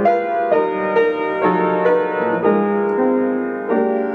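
Piano playing a short introduction, a chord struck about twice a second over held notes.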